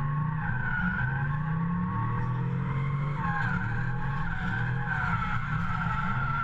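Drift car's engine revving up and down while its tyres squeal through a drift, heard from inside the cabin.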